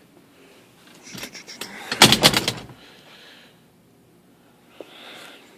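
Alfa Romeo GTV car door being worked: a few light latch and handle clicks, then a quick run of loud metallic knocks about two seconds in as the door latches.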